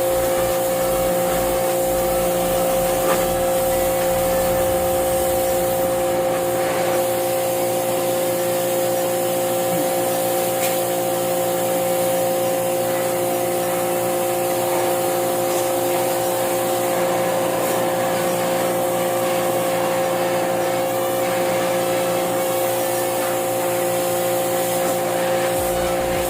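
Electric pressure washer running steadily, its motor humming under the hiss of the water spray.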